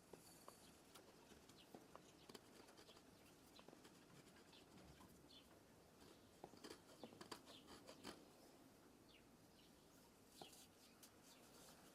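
Near silence, with faint scattered small ticks and a few short high chirps throughout.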